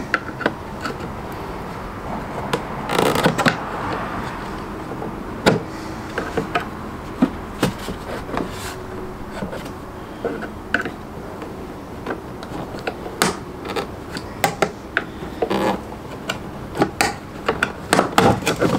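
Irregular plastic clicks, creaks and scrapes as the glass of a Fiat Ducato van's exterior mirror is forced off its mounting ring, with a louder cluster of clicks near the end.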